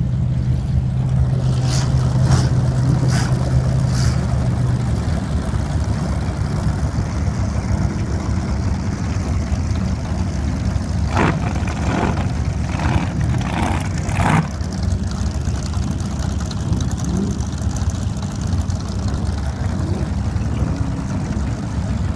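Motorboat engines running steadily with a deep rumble. A steady engine note holds for the first five seconds, and a few sharp knocks come around the middle.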